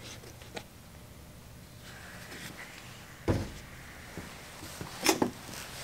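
Quiet workshop room tone with two knocks: a dull thump about three seconds in and a sharp click about five seconds in.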